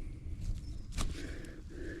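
Wind rumbling on the microphone, with one sharp click or knock about a second in.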